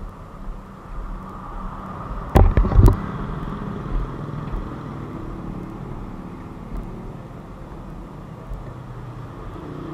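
Honda Super Cub's four-stroke single-cylinder engine running at a steady low idle, with two heavy knocks about two and a half seconds in.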